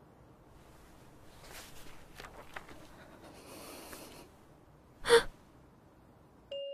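A girl's single short, sharp gasp about five seconds in, after a few seconds of soft rustling. Bell-like music notes begin just at the end.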